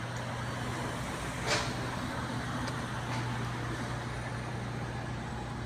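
A motor engine running steadily with a low hum, amid outdoor street noise, with one brief sharp noise about one and a half seconds in.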